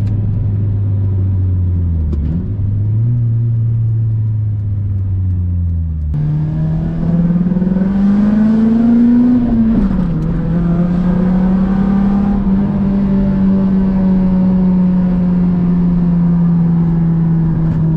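Honda VTEC engine pulling under acceleration: the engine note jumps up about six seconds in, climbs, drops at a gear change near the ten-second mark, then holds steady. It is running cleanly with no rough idle, its throttle position sensor just repaired.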